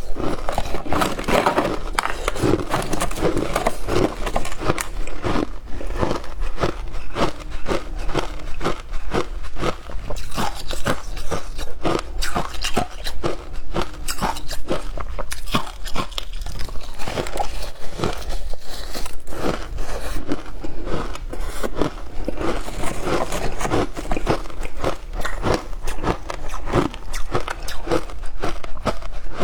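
Passion fruit ice being bitten and chewed close up: a steady, dense run of sharp, crisp crunches and cracks with no pause.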